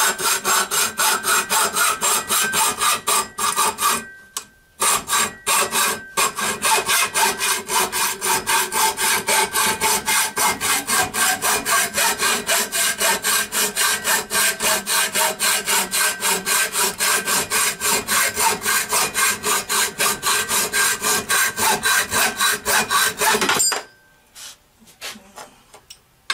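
Hacksaw cutting through square metal tubing clamped in a bench vise, in rapid, even back-and-forth strokes with a short pause about four seconds in. The sawing stops near the end as the piece is cut off.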